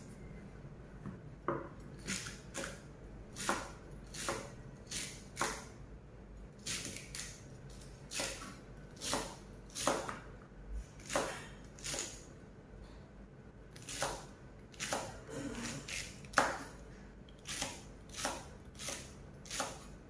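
Kitchen knife chopping celery on a cutting board: a run of chops at an uneven one to two a second, with a short pause about two-thirds of the way through.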